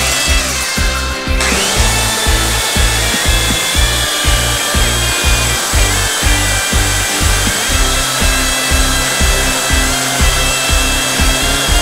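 Hitachi handheld belt sander running steadily along a stainless steel bar, brushing the metal to a brushed-steel finish, with a high whine over the grinding. Background music with a steady beat plays underneath.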